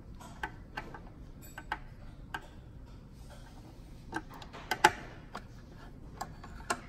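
Small screwdriver, a T15 Torx, turning out a screw in a bike trainer's plastic cover: irregular light clicks and ticks as the bit turns and is regripped in the screw head, the loudest a little under five seconds in.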